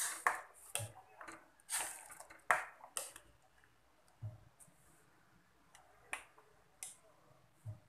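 A spoon scraping and knocking against a stainless steel pot while poha is stirred into water: a quick run of sharp scrapes and clicks over the first three seconds, then a few scattered ticks.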